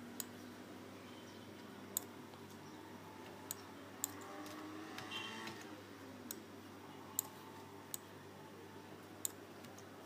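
Sharp, isolated clicks of a computer mouse and keyboard, about eight scattered irregularly, over a faint steady hum.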